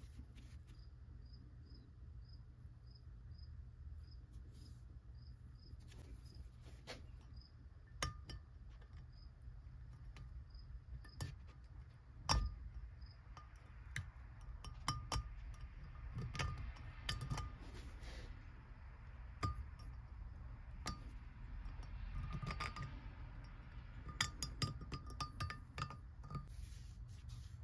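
Light metallic clinks and taps as small screws are fitted into the knurled steel jaw plate of a vise, scattered and irregular, over a steady low hum. A faint high chirp repeats about twice a second through the first ten seconds.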